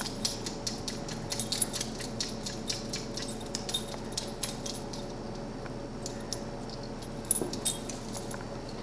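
Light metallic jingling and clinking of collar tags on English golden retriever puppies as they play-wrestle, a quick run of small clicks that thins out in the middle and picks up again near the end.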